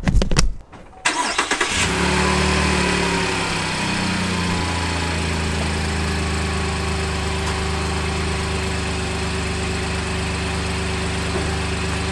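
A few knocks, then a Chevy Colorado ZR2 pickup's engine starts about a second in and settles into a steady idle.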